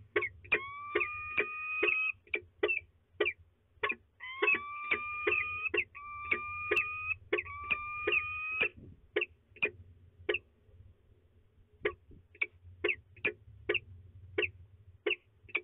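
Peregrine falcons calling: drawn-out wailing notes broken by sharp, clipped notes at about two to three a second. After about nine seconds only the short clipped notes go on, with a brief pause near the middle.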